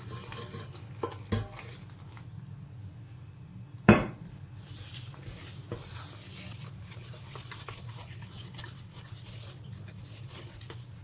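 Wooden spoon stirring and scraping flour in a steel bowl as hot water is poured in and worked into idiyappam dough, with one sharp knock about four seconds in. A steady low hum runs underneath.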